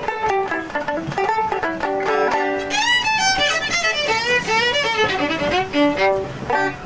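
Fiddle playing a lively tune in fast runs of notes, with some sliding, wavering notes about three seconds in, and a banjo picking along underneath.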